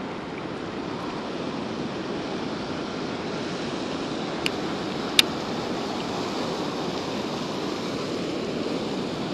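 Steady rush of water pouring over a spillway, with two short sharp clicks about four and a half and five seconds in.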